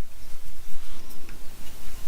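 Handling noise while a new USB-C adapter is taken out of its packaging: a low rumble with faint rustling and a light click about a second in.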